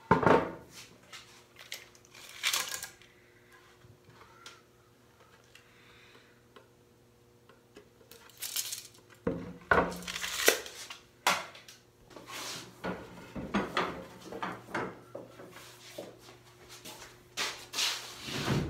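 Irregular knocks and clatter of workshop handling: a walnut board knocked against and laid onto the wooden frame of a sideboard, then the rattle of a steel tape measure and tools being handled, with a loud knock at the shop cabinets near the end.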